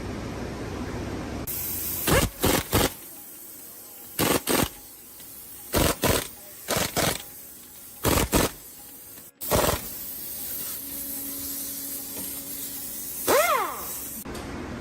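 A series of short bursts of hiss, in pairs and threes, followed near the end by a brief squeak that bends up and down in pitch.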